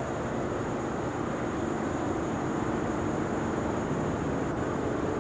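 Turbocharged diesel engine of a super stock pulling tractor running hard at full throttle as it drags the weight sled, with a steady, loud run that grows slightly louder.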